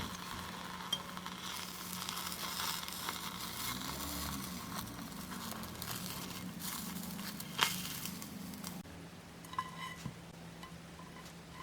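Thin layer of beaten egg sizzling in an oiled frying pan, with a sharp click of a utensil against the pan about two-thirds of the way in. The sizzle fades near the end.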